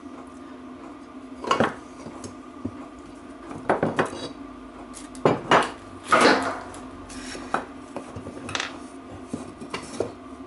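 Metal differential parts (casing, cover, bearings and small fittings) being handled and set down on a workbench: about a dozen separate clinks and knocks, irregularly spaced, over a steady low hum.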